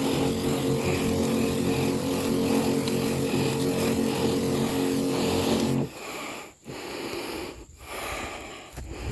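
Small engine of a motorized herbicide sprayer running steadily, then cutting off abruptly about six seconds in.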